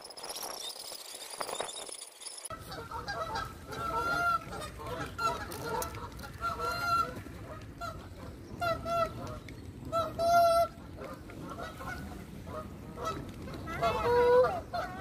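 Canada geese honking, short calls again and again with several birds overlapping, starting a couple of seconds in and loudest near the end.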